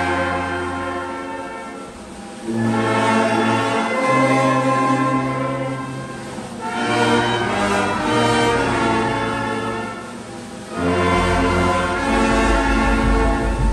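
Music accompanying a traditional dance: slow phrases of held chords over held bass notes, swelling in again every four seconds or so, with a deeper bass coming in near the end.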